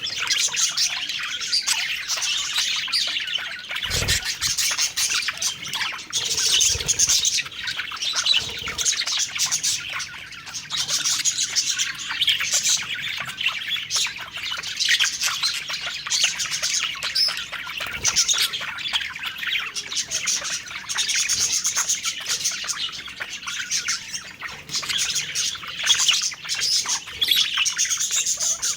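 Budgerigars chattering and warbling without pause, many quick chirps overlapping, with a few soft low thumps, the first about four seconds in.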